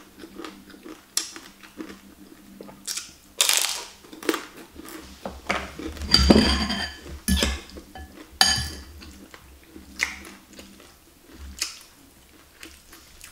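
Close-up eating sounds: a fried wonton being crunched and chewed, with a metal spoon and fork clinking against a glass bowl.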